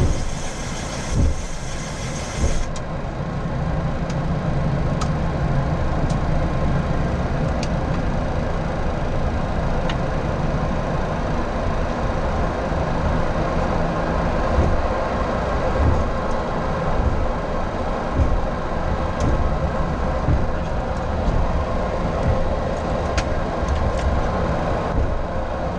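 Flight-deck noise of a Boeing 737-800 taxiing: a steady low rumble of the idling engines and rolling gear, with a few light knocks. A high hiss cuts off about three seconds in.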